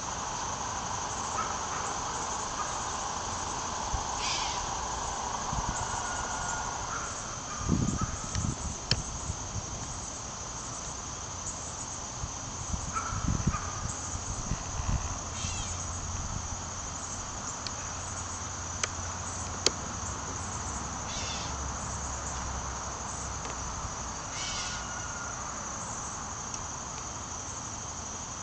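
Steady chorus of crickets, with short chirps now and then and a few low rumbles near the middle.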